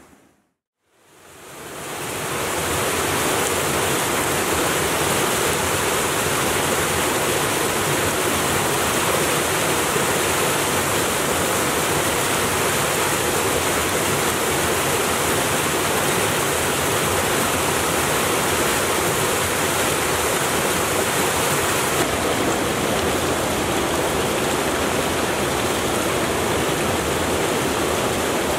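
Woodland brook rushing down a rocky cascade into a pool: a steady, even rush of falling water. It fades up from silence during the first two seconds.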